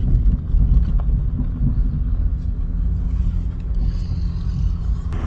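Car cabin noise while driving: a steady low rumble of engine and road noise.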